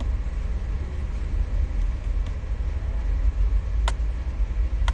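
Low, steady rumble of a car engine idling, heard from inside the car's cabin, with a couple of short clicks near the end.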